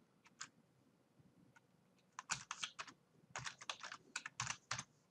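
Computer keyboard keys clicking: two taps, a pause of nearly two seconds, then a quick run of keystrokes as a password is typed.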